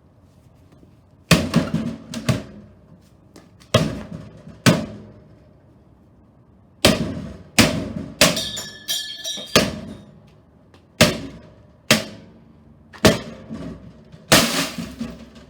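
A toaster oven being smashed: about a dozen heavy blows strike its metal case and glass door at an irregular pace, some ringing briefly, ending in a longer crash near the end.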